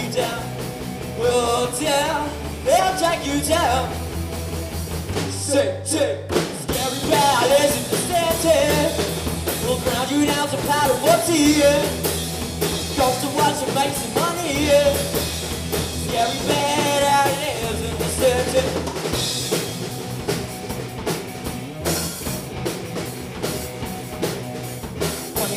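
Live rock band playing: lead vocal singing over electric guitar, bass guitar and drum kit, with a brief break about six seconds in.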